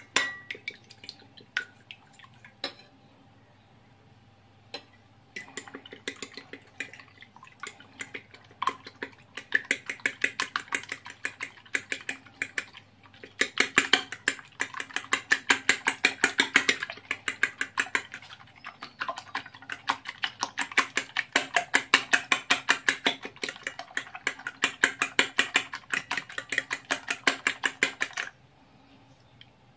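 A metal fork beating a raw egg on a ceramic plate, clinking rapidly against the plate several times a second. A few separate clinks come first, then a long quick run with one short break about two-thirds through, stopping shortly before the end.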